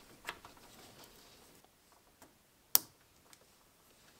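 A few small, sharp clicks of wires and plastic connectors being handled, with one louder click a little past halfway.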